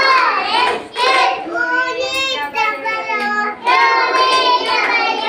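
A young boy singing a children's rhyme alone, with no accompaniment, holding some notes long.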